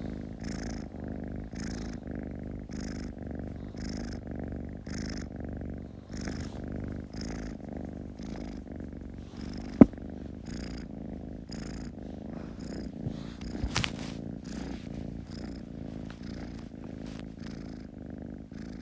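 Kitten purring steadily, the purr swelling and easing with each breath about twice a second. There is a sharp click about ten seconds in and a couple of light knocks a few seconds later.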